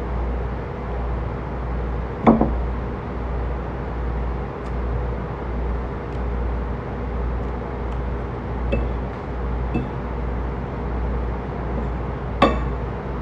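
Metal fork clicking against a ceramic salad bowl while eating: one sharp click about two seconds in, a few faint ticks later, and a ringing clink near the end, over a steady low hum and rumble of background noise.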